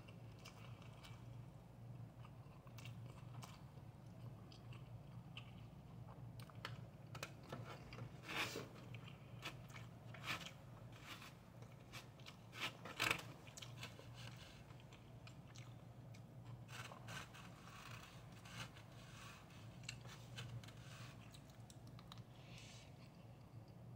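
Close-up chewing and mouth sounds of someone eating fried rice, with short clicks and scrapes of a plastic spoon in a styrofoam takeout container, the loudest about halfway through. A low steady hum runs underneath.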